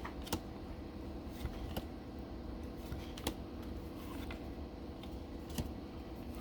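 Baseball trading cards being flipped through one after another: a handful of soft, irregular clicks as cards are slid off the stack, over a steady low room hum.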